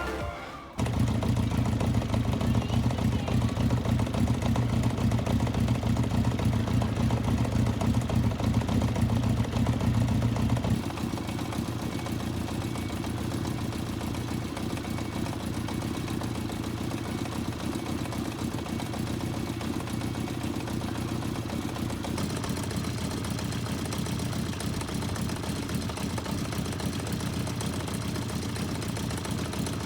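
Honda CBX550F's air-cooled inline-four engine idling steadily. This is the engine whose abnormal noise the owner is trying to cure. The sound comes in suddenly near the start and drops noticeably quieter about a third of the way through.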